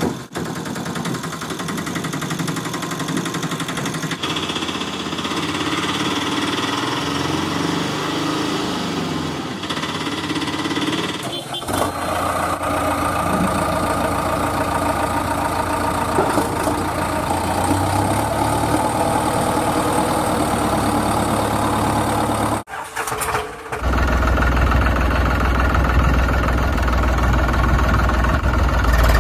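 Engine sound of a running vehicle, laid over toy-vehicle footage, in three stretches split by abrupt cuts about a third of the way in and again about three-quarters of the way in. The last stretch is deeper and louder.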